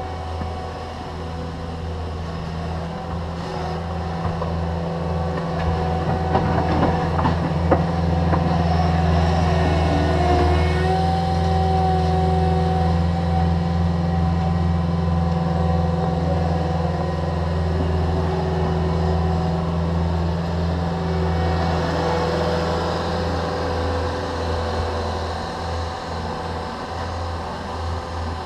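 Diesel engines of a Cat 305.5E2 mini excavator and a Cat 289D compact track loader running under load, a steady low drone with whining tones above it. The sound swells in the middle as the track loader comes up close to the pile, with a few sharp clanks about a quarter of the way in.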